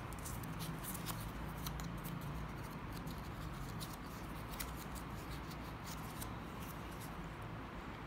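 Scattered light ticks and rustles of cut paper pieces being picked up and handled on a table, over a steady low hum.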